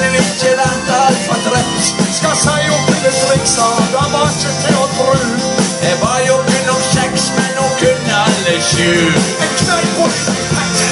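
Live band playing amplified music on guitars and drums through PA speakers, steady and loud throughout.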